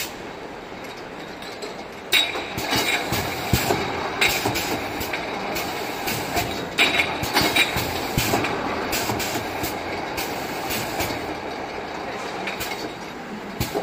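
Automatic rotor-pump jam filling line running: a steady machine noise with repeated sharp clacks, some with a short hiss, from the pneumatic filling nozzles and glass jars knocking along the conveyor.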